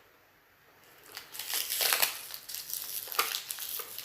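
Toy packaging being handled and squeezed, crinkling and crackling with sharp clicks, starting about a second in.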